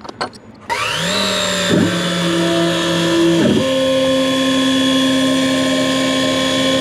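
A few clicks, then a small CNC mill's spindle, fitted with an engraving bit, spins up under a second in with a quickly rising whine and runs on at a steady high whine. Under it the axis stepper motors hum in steady tones that jump to new pitches twice as the head moves.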